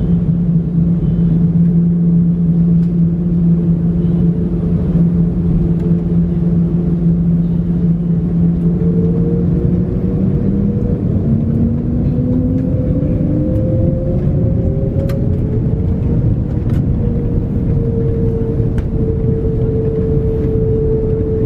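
Airbus A330-900neo's Rolls-Royce Trent 7000 engines heard from inside the cabin over a steady rumble: a whine holds a low pitch, then about halfway through rises over several seconds and settles higher as the engines spool up ahead of take-off.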